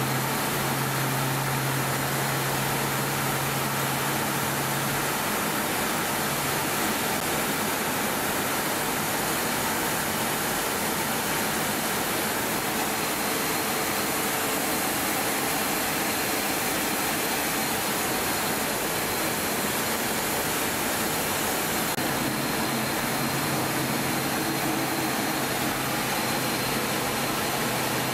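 Steady rushing cockpit noise of a Tornado GR4 in flight, with a low hum that fades out about five seconds in and a faint high whine.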